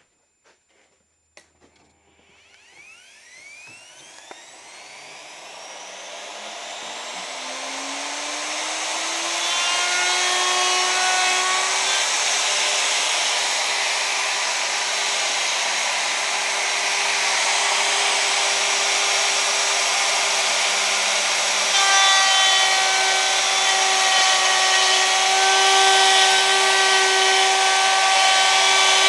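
Electric wood router switched on, its motor winding up over several seconds to a steady high whine with a loud rushing hiss; it gets a little louder about 22 seconds in.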